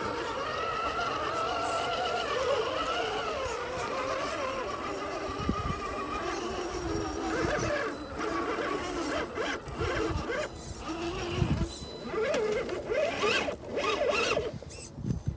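Radio-controlled rock crawler's electric motor and gears whining, the pitch rising and falling with the throttle. From about five seconds in there are irregular knocks and clatter.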